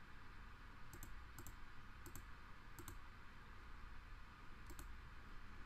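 Computer mouse clicking five times at uneven intervals, each click a quick double tick, over a faint steady hiss.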